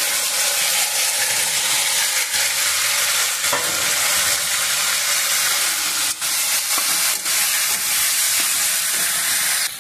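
Hot oil and spiced masala sizzling steadily in a kadhai as boiled, crumbled potatoes are stirred in with a steel spatula, with a few light knocks of the spatula against the pan.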